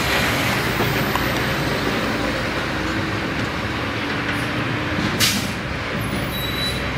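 A concrete mixer truck's diesel engine running steadily as the truck pulls away, with a short sharp hiss about five seconds in.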